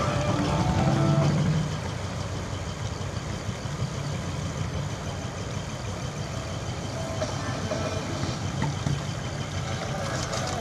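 Engine of a decorated double-cab light truck running as it creeps along at low speed, a little louder for about the first second and a half, then settling to a steady low idle-like rumble.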